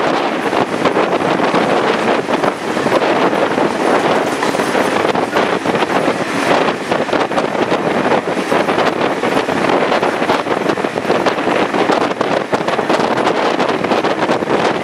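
Wind buffeting the microphone beside a moving heritage passenger carriage, over the steady running noise of the train's wheels on the rails.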